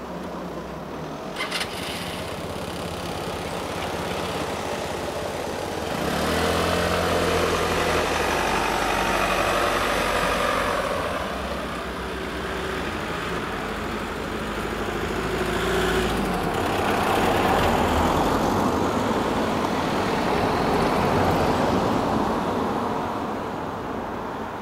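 Road traffic starting off and driving over the level crossing as the barriers lift: a motor scooter and cars pulling away and passing close one after another, their engines loudest about a quarter of the way in and again about two thirds in. A short click comes about a second and a half in.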